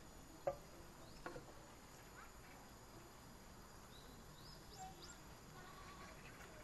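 Near silence outdoors: two light taps early on, the first the loudest sound, then a few faint high chirps.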